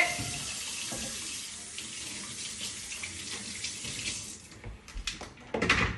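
A kitchen tap running into the sink while hands are washed under it, shutting off about four seconds in. A few small clicks follow, with a short louder sound near the end.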